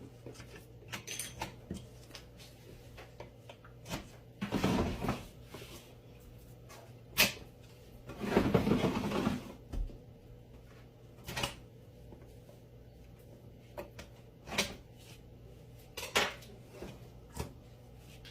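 A cardboard shipping box being handled and opened by hand: scattered knocks and clicks, with two longer stretches of scraping and rustling, the longer one about halfway through.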